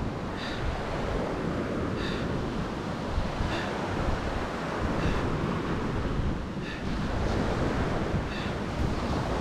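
Ocean surf washing steadily on a beach, with a faint, short high chirp repeating about every second and a half.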